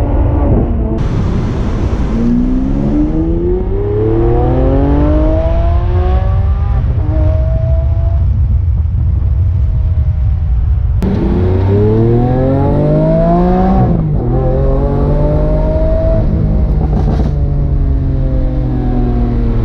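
Lamborghini Aventador S Roadster's 6.5-litre V12 under acceleration. The revs climb, level off, then climb again more loudly about halfway through and drop sharply a few seconds later before settling.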